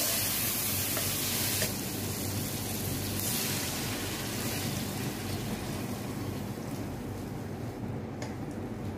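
Chicken pieces with tomatoes and spices sizzling as they fry in a pan, then water poured in. The sizzle drops off sharply twice in the first few seconds and keeps fading as the liquid covers the food.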